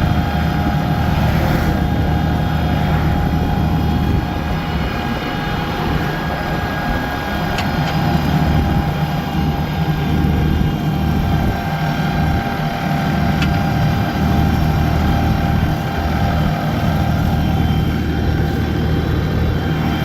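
Ford 445D's diesel engine running steadily at a constant speed while towing a tractor.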